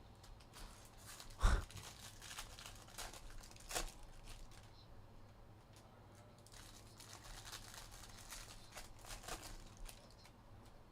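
Plastic packaging of sealed trading card boxes crinkling and tearing as it is opened, with a sharp knock about a second and a half in and a smaller one a couple of seconds later.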